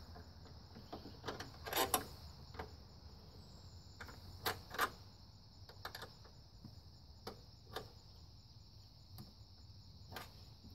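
Light clicks and clinks of small metal hardware, scattered every second or so, as a nut is threaded by hand onto a car battery's hold-down bolt and a small wrench is fitted to it. A steady high chirring runs underneath.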